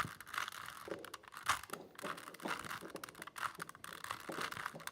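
3x3 Rubik's cube being twisted by hand, its plastic layers turning with quick, irregular clicks and scraping.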